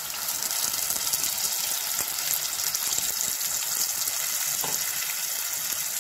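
Drumstick curry sizzling steadily in a hot pan just after water was poured onto the fried masala, stirred with a wooden spatula.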